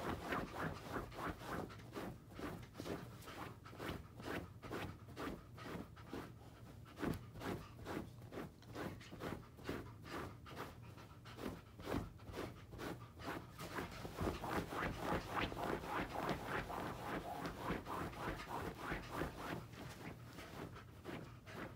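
Wolf dog panting in a steady rhythm, about three breaths a second, growing a little louder about two-thirds of the way through.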